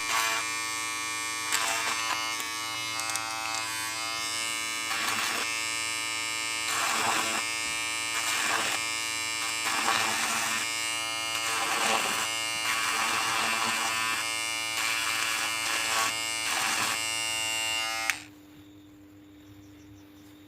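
Kemei electric hair clipper running with a steady buzzing motor hum, with brief louder moments every second or two. It is switched off with a click near the end.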